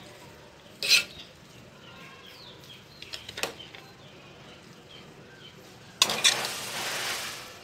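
Serving spoon clacking and scraping in a pot of cooked biryani as rice is scooped out: a sharp clack about a second in and lighter clicks around three seconds. From about six seconds a louder rustling scrape lasts about a second and a half as rice is spooned onto a plate.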